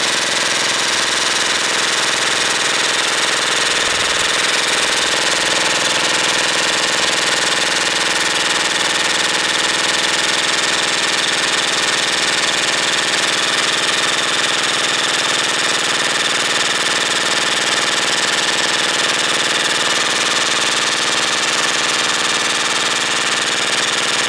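Airsoft electric gun firing on full-auto in one unbroken burst, fed by a motor-driven 1200-round drum magazine: a steady mechanical buzz that holds an even pitch and level with no pause.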